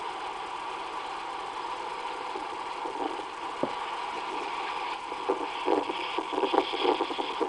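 Recorded common ravens played back through a computer speaker over a steady hum. About five seconds in, a quick run of short, low knocking calls begins.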